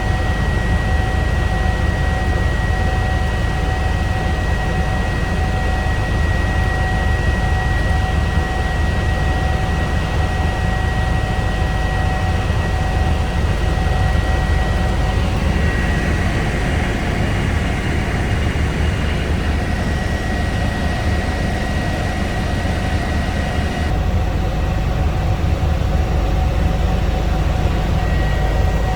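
Eurocopter EC145 twin-engine helicopter in cruise, heard from inside the cabin: a steady deep rotor-and-engine rumble with two steady high whines over it.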